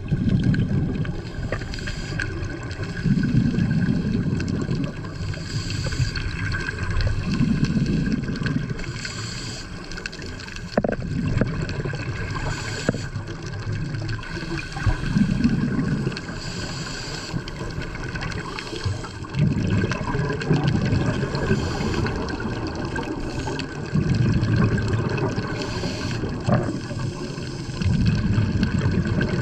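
A scuba diver breathing through a regulator underwater: exhaled bubbles rumble in bursts about every four seconds, with the hiss of an inhalation between them.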